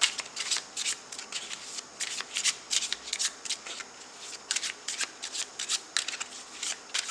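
A thick deck of oracle cards being shuffled overhand by hand, with quick, irregular flicks and slaps of card against card, several a second.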